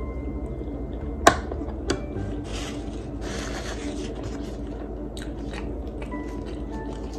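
Close-up eating sounds: chewing with small mouth clicks, a sharp tap about a second in and a lighter one shortly after. Soft crackling near the end as a roti is torn by hand.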